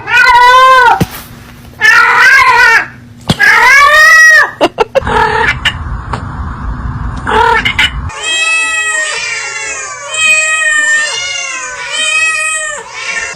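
Cat meowing loudly: three long, drawn-out meows, then after a few seconds of low noise, a rapid run of short, high meows.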